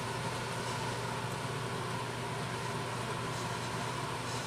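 Steady, unchanging hum and hiss of a running machine or fan, with no separate events.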